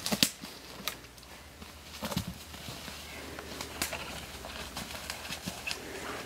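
Footsteps crunching through dry leaf litter, sticks and a thin layer of snow, in irregular steps with sharp snaps and crackles.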